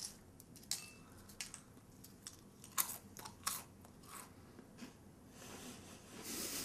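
A person chewing crunchy food: faint, scattered crunches and clicks, a few sharper than the rest, with a soft hiss near the end.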